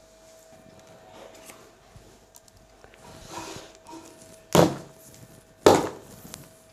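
A long cable being uncoiled and shaken out by hand: light rustling and handling noise, then two short, loud whooshes about a second apart near the end.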